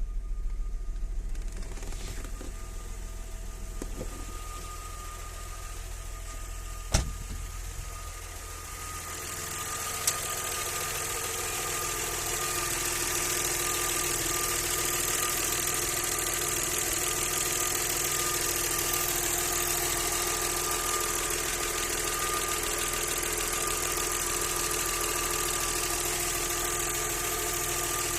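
Audi 100 C4's 2.6-litre V6 engine idling, growing louder about a third of the way through, with two sharp clicks before that. The owner is chasing a knock in both cylinder heads, which he thinks could be the hydraulic lifters, spun bearing shells or a connecting rod.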